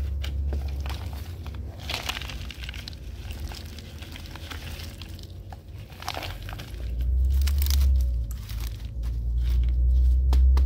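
Chunks of bark potting substrate crunching and rustling as fingers press them down around an orchid in a plastic pot, in scattered small clicks, over a low rumble that grows louder about two-thirds of the way through.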